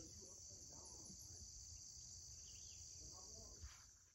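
Faint, steady chorus of insects, a continuous high-pitched buzz.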